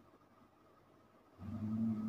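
Sleeping dog snoring: a quiet pause between breaths, then a loud, low, steady-pitched snore starts about one and a half seconds in.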